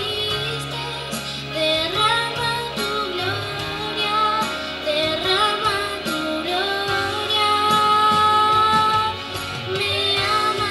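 A ten-year-old girl singing a Christian worship song into a handheld microphone over instrumental accompaniment, holding one long note about eight seconds in.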